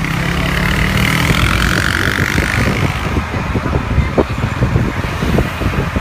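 Vehicle engine running steadily while driving along a street, with a scatter of short knocks and rattles from about three seconds in.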